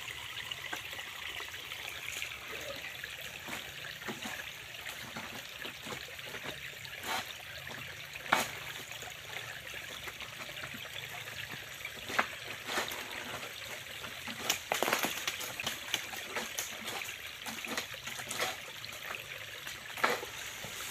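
Water trickling steadily, with a few scattered sharp clicks and knocks over it.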